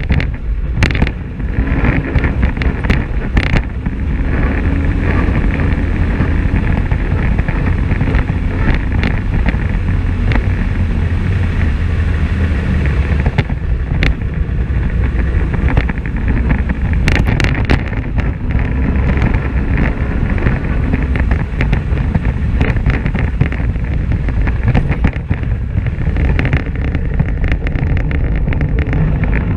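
Polaris RZR XP 1000 side-by-side driving along a dirt and gravel track: its parallel-twin engine runs steadily under a heavy rumble from the tyres and chassis, with wind on the microphone and scattered sharp knocks from bumps and gravel.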